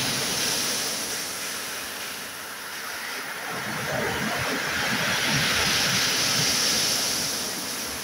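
Sea waves breaking and washing up a pebble beach, the surf swelling and easing: loud at the start, dipping, then building to a second surge past the middle before fading near the end.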